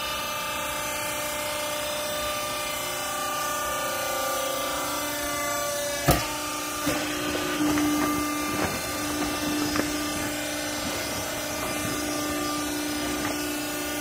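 Hydraulic power unit of a vertical rag baling press running with a steady hum. A sharp knock comes about six seconds in, followed by scattered smaller knocks.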